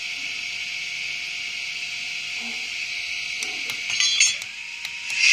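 DCC sound decoder in an N gauge Farish Class 45 'Peak' model playing a diesel engine sound through its tiny speaker. The sound is thin and hissy, with almost no bass. A short run of clicks comes about four seconds in, then a brief dip, and the sound swells louder near the end.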